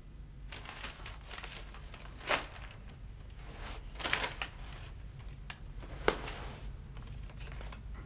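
Loose sheets of paper rustling and scraping on a floor as they are picked up and gathered by hand, with three sharper rustles standing out, over a steady low hum.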